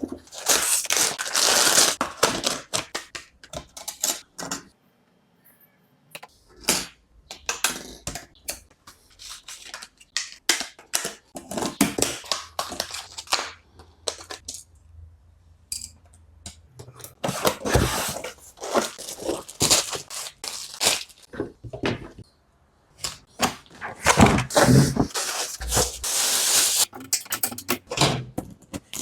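Hands assembling a PC: a run of sharp plastic and metal clicks, knocks and rustling as parts are handled and fitted into the case. It stops briefly twice for a moment of near silence.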